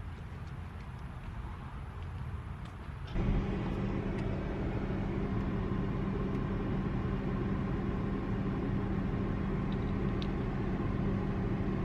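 Car hum switching on suddenly about three seconds in, then running steadily with a constant low tone: the engine started or the ventilation fan turned on.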